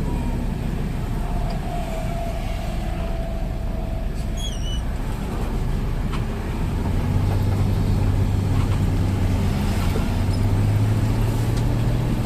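A large bus's diesel engine running at idle: a steady low hum that grows louder about halfway through, with a few faint high chirps a few seconds in.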